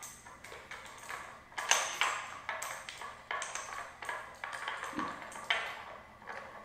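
Small metal clicks, taps and scrapes from a Sky-Watcher AZ-GTi mount being worked with the hands as its screw is turned and the adapter on its base is loosened and removed. The taps come irregularly, several close together, loudest about two seconds in, some with a slight metallic ring.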